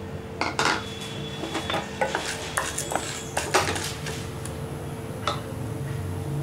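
Wooden spatula stirring split chana dal in oil in a non-stick pan: a quick run of knocks and scrapes against the pan for the first few seconds, then one more knock near the end.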